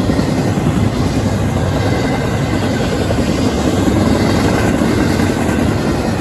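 CSX intermodal freight train's double-stack well cars rolling past: a steady, loud noise of steel wheels on rail.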